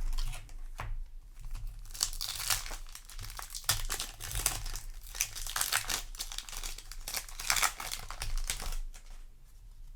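Foil booster-pack wrapper crinkling and tearing open, with irregular crackly rustling that is heaviest through the middle and dies away near the end.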